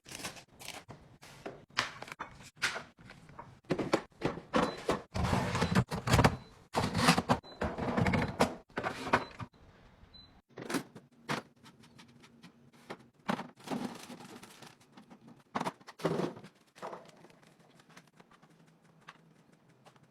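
Groceries and containers being handled and set onto fridge shelves: irregular thunks, clicks and plastic rustling, busiest from about four to ten seconds in, then fewer knocks.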